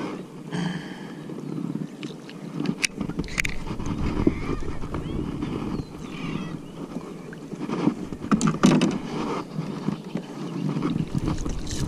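Handling noise on a plastic kayak: knocks, clicks and rustling, with water splashing as a snagged clump of water weed is dragged up beside the hull and pulled off the line by hand. The loudest knocks come about three seconds in and again around eight to nine seconds.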